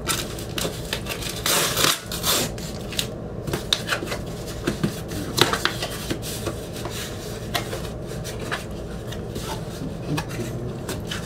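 Cardboard shipping box being handled and opened by hand: irregular scraping and rubbing of cardboard with scattered sharp clicks and taps.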